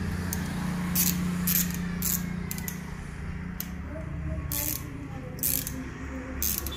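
Irregular small clicks and rattles of an electrical plug and its metal fitting being handled and fitted together by hand, over a steady low hum.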